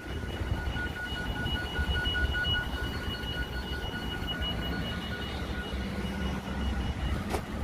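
A steady high-pitched electronic tone, faintly pulsing, over a low rumble of road traffic and wind; the tone stops about seven seconds in, and footsteps start near the end.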